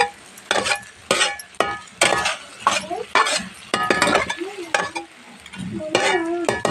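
Metal spatula scraping and clinking against a steel kadhai as a potato and onion-greens curry is stirred, about two strokes a second, each stroke leaving a short metallic ring.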